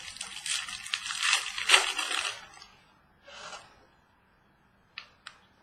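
Trading cards being handled and slid against each other: a rough papery scraping and rustle for about two seconds, a short softer scrape, then two light clicks near the end.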